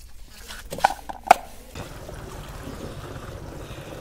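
A few sharp knocks, then from about two seconds in a steady stream of water from a hose pouring into a plastic container as it fills.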